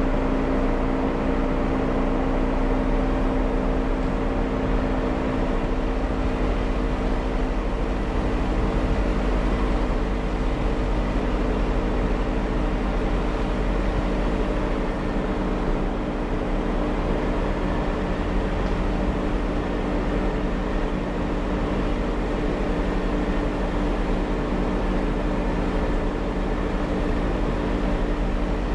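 Jeep Wrangler driving on an off-road trail, its engine humming at a steady pitch over a low rumble of drivetrain and tyres.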